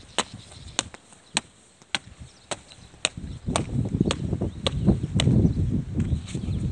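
A steady beat of sharp clicks, about two a second, evenly spaced and of even strength, with a low rumble of wind on the microphone from about halfway through.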